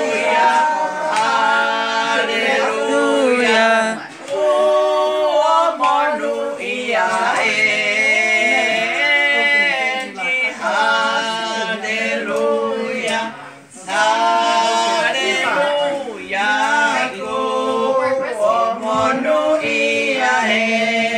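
Voices singing a slow song together, in long held notes, phrase by phrase with short breaks between.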